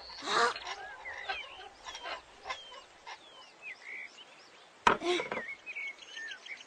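Birds chirping with short, repeated calls throughout. There is a short pitched cry about half a second in, and a sharp wooden knock from the cart wheel about five seconds in.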